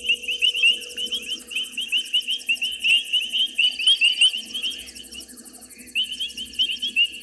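Night chorus of frogs and insects at a waterhole: a dense stream of short high chirps, many a second, with fainter fast high-pitched pulsing above. The chirping thins out briefly about five seconds in, then resumes.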